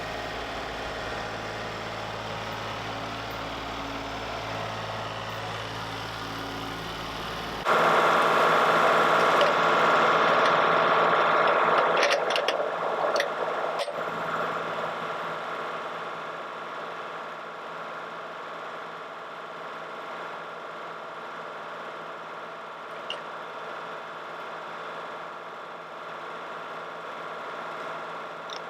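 Engine of a sawmill cutting lumber runs steadily. About a third of the way in, the sound switches abruptly to a louder, brighter running noise that eases off over the following several seconds, with a few clicks along the way.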